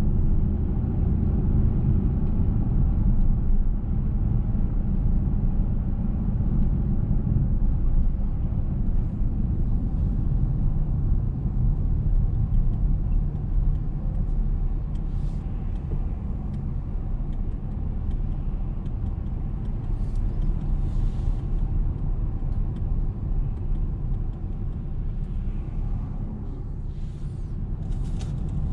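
Car driving through city streets: a steady low rumble of engine and tyre noise that eases slightly as the car comes to a stop at a red light near the end. A few brief, faint hisses come and go above it.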